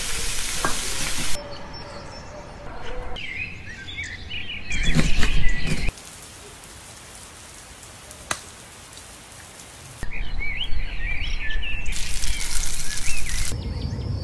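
Hot oil sizzling in a deep-frying pot for the first second and a half, then cut off. Birds chirp in two short spells later on, and another stretch of steady hiss comes near the end.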